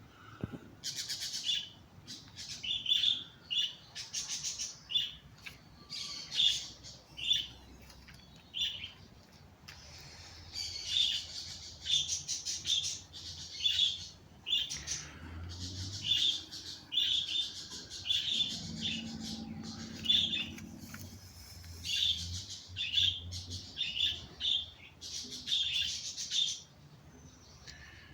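Small birds chirping in quick, repeated high-pitched phrases, with brief pauses between runs.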